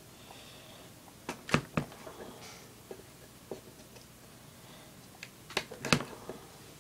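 Small scissors snipping in sharp clicks as a lighter's wick is trimmed: a couple of clicks about a second and a half in, then a cluster of clicks near the six-second mark.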